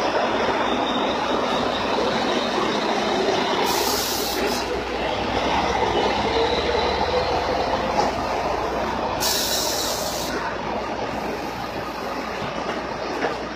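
Steady loud mechanical rumble with two short hisses, about four and nine seconds in; it eases off slightly near the end.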